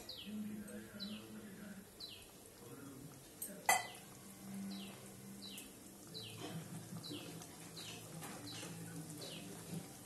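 A bird calling a short falling chirp over and over, roughly every half second, with a single sharp click a little under four seconds in.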